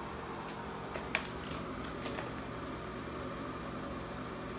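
Bare feet stepping onto a glass digital bathroom scale: a few light taps and knocks about one to two seconds in, the sharpest near the start of that stretch. Under them a steady hum and hiss.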